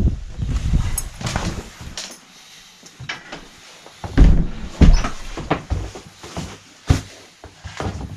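Knocks, thuds and rustling from a door being handled and a camera being moved about close to its microphone. The loudest thumps come about four and five seconds in, with more near the end.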